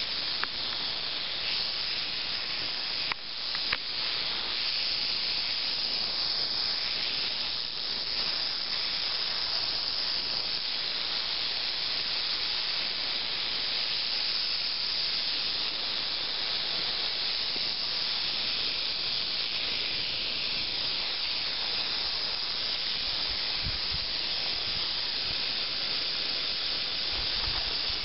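Black-tailed rattlesnake rattling its tail in a steady, unbroken high buzz, the snake's defensive warning.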